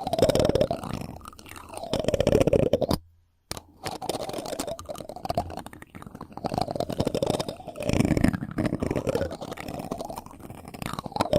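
Close-miked ASMR friction sounds: something rubbing and scratching on the microphone, making dense crunchy crackling that swells and fades every couple of seconds. It cuts to silence for about half a second near three seconds in.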